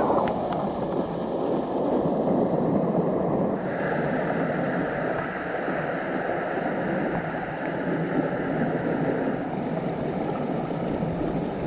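Creek water rushing over rocks and falls: a steady noise.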